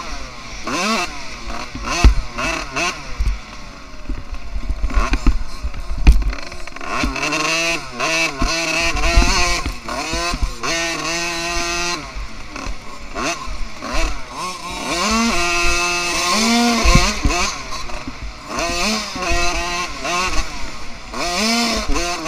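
Dirt bike engine revving up and down repeatedly while riding a motocross track, with scattered low thumps.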